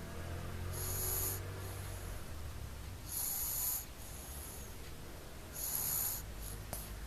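A sleeping baby of about seven months snoring through a nose blocked by allergy. Three short, hissy snorting breaths come about two and a half seconds apart.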